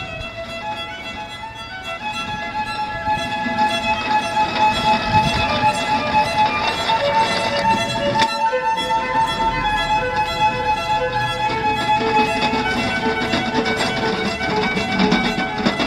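Background music with a melody of long held notes stepping from pitch to pitch.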